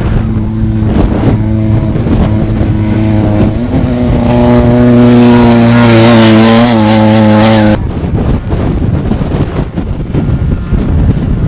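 Desert race vehicle's engine running hard, growing louder and rising slightly in pitch about four seconds in, then cutting off suddenly about eight seconds in; rougher engine and wind noise follow.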